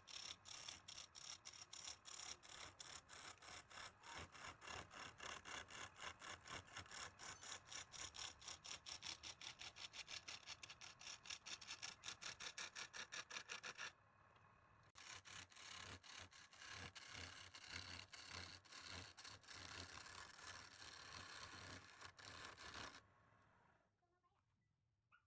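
Quick rhythmic scraping on wood, about four strokes a second, becoming a rougher, less even scraping about halfway through and dying away near the end.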